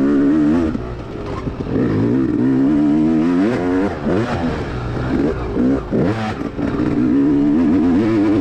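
Dirt bike engine revving up and down as the rider accelerates and backs off through the trail, its pitch rising and falling again and again.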